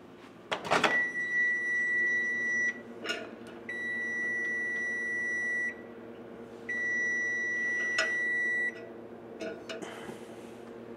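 Microwave/air-fryer combination oven sounding three long, steady beeps, each about two seconds, its reminder during the mid-cook turn of the steak. A sharp clack comes just before the first beep, and a steady fan hum runs underneath.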